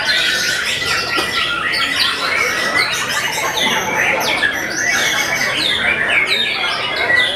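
Several caged white-rumped shamas (murai batu) singing at once: a loud, unbroken tangle of rapid whistled sweeps and trills from many birds overlapping.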